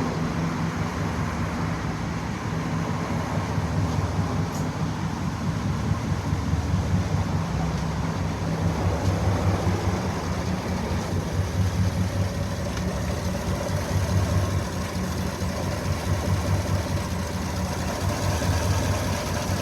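2016 GMC Sierra V8 idling unevenly, its running unsteady from a misfire on cylinder number 7.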